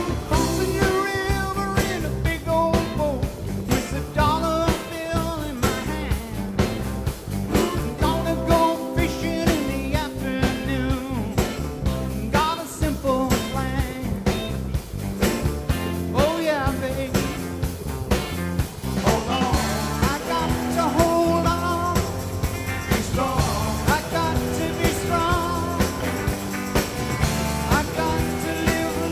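Background rock music with a steady drum beat and guitar.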